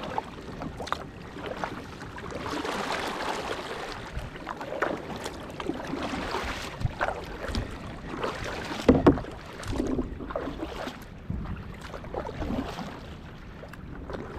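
Kayak paddling: paddle strokes splashing irregularly and water washing against the hull, with a louder knock or splash about two-thirds of the way through.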